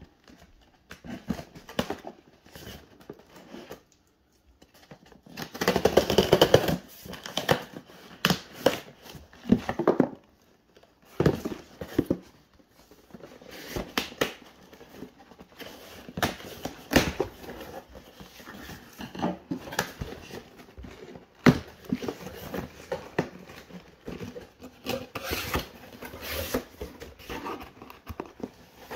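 Scissors cutting the packing tape on a cardboard shipping box, with tape tearing, cardboard scraping and flaps being pulled open, in irregular scrapes, knocks and rustles. The loudest stretch, about a second and a half long, comes about six seconds in.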